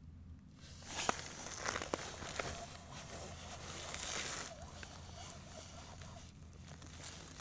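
Faint rustling and crunching with a few sharp clicks, someone moving about on snow-covered ice, over a low steady hum.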